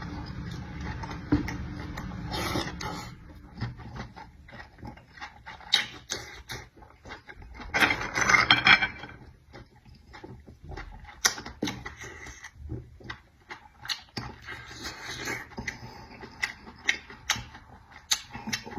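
Close-miked eating: irregular wet clicks and smacks of chewing, with a louder noisy stretch about eight seconds in.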